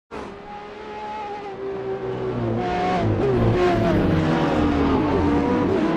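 Racing car engines revving, several pitches gliding up and down at once, getting louder about two seconds in.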